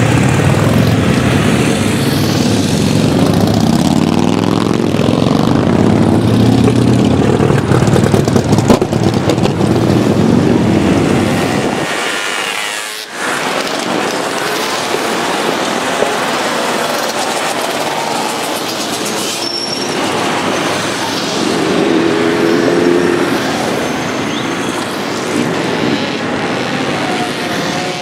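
A procession of many motorcycles riding past, a steady engine rumble. The deep low rumble of the heavy cruiser bikes dominates the first half, then falls away about halfway through, leaving a lighter, thinner mix of sport-bike engines with a few brief revs.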